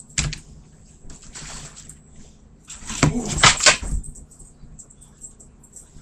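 A dog snatching and eating a pizza: a sharp knock just after the start, rustling about a second in, then a louder run of clattering and rustling about three to four seconds in.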